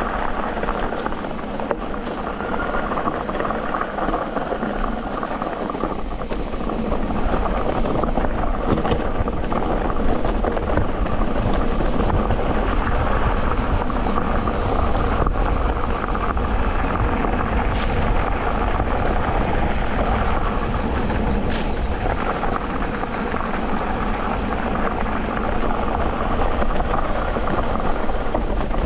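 Steady riding noise from an electric mountain bike on a dirt trail: tyres rolling over the ground with the chain and frame rattling. It grows a little louder about a quarter of the way through and stays so.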